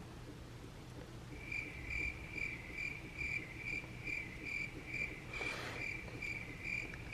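A high-pitched chirp repeating steadily about two and a half times a second, starting about a second and a half in. A soft breathy sound comes about five and a half seconds in.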